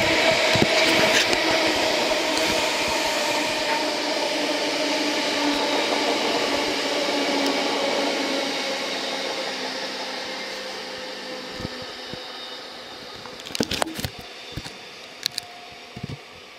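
Freight train of loaded bulk hopper wagons rolling along the track, the wheels clattering over the rails with a steady hum, fading away as the train draws off. A few sharp clicks near the end.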